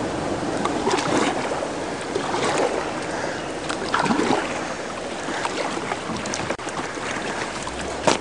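Kayak paddling through fast river riffles: a steady rush of moving water, with the splashes of paddle strokes and a sharp knock near the end.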